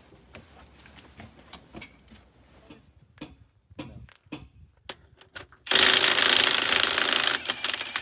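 Cordless impact wrench hammering on a bus wheel hub's nuts: one run of about a second and a half, then a few short bursts. Before it, only faint scattered clicks and knocks.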